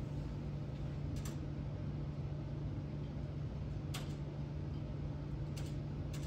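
Steady low hum of the room's ventilation, with a few sharp clicks spread through it, about four in all.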